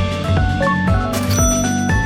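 Background music: an upbeat melody of short stepping notes over a steady beat.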